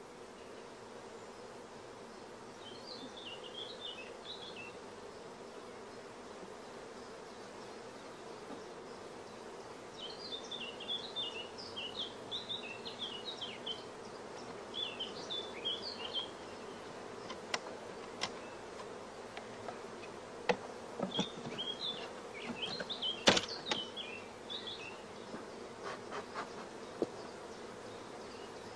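Honeybees buzzing in a steady hum around an opened hive while brood frames are lifted out. Three clusters of short, high chirps come through, and several sharp wooden knocks of frames against the hive boxes fall in the second half, one of them the loudest sound.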